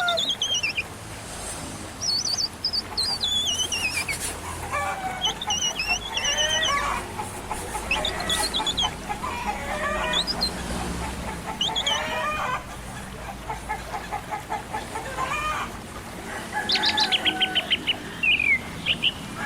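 Birds chirping and chickens calling: many short, warbling calls that rise and fall in pitch, with a quick run of repeated chirps near the end. A low steady hum runs underneath.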